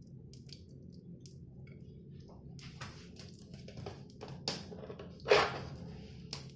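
Desi ghee being scooped with a spoon from its container into an iron kadhai: soft, wet scrapes and light clicks of spoon on metal, getting busier about halfway through, with a louder knock a little past five seconds. A steady low hum runs underneath.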